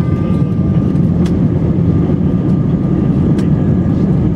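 Jet engines of an Airbus A320-family airliner running, heard inside the cabin while the plane rolls on the ground: a steady loud rumble with a steady whine over it, and a couple of brief rattles.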